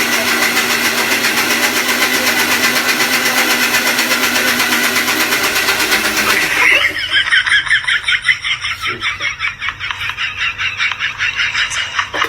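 Electric kitchen mixer grinder running, a loud steady whirr for about six and a half seconds. It then gives way to a quieter, fast pulsing sound.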